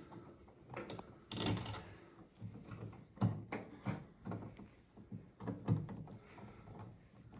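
Irregular light clicks and scrapes of the mounting screws of a light switch being started into a wall switch box.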